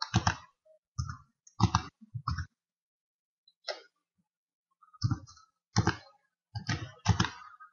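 Computer keyboard keys being pressed as values are typed in and tabbed between cells: short, irregular clicks in ones and twos, with a lull in the middle.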